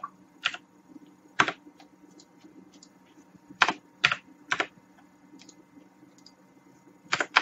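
Computer keyboard keys pressed in scattered single keystrokes, a second or more apart, with a quick run of several near the end.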